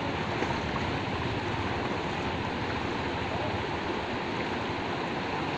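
Shallow rocky river rushing over stones: a steady, unbroken wash of water noise.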